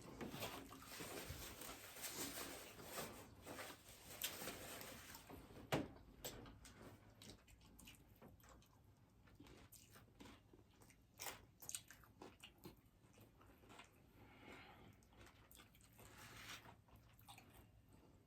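Crunchy hard-shell tacos being bitten and chewed: faint crunching with scattered sharp crunches, one louder about six seconds in.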